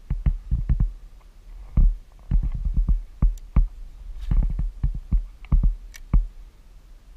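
Handling noise in a kayak: a run of irregular dull knocks and thumps, some sharper, as the camera and fishing rod are moved about, stopping shortly before the end.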